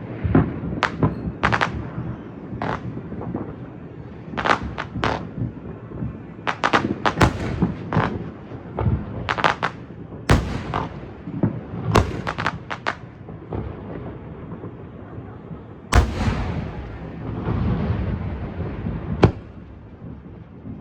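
Aerial fireworks going off in an irregular string of sharp bangs over a continuous low rumble, with a heavy boom about three quarters of the way through followed by a longer rumble and one more sharp bang.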